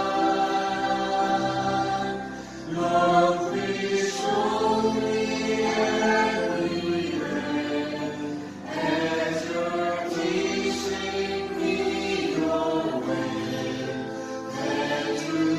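Church praise team of men and women singing a worship song together with band accompaniment, in long held phrases with short breaks about two and a half and nine seconds in.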